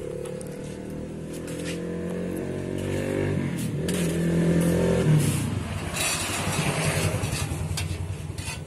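A motorcycle passing along the street, its engine growing louder to a peak about five seconds in, its pitch dropping as it goes by, then fading.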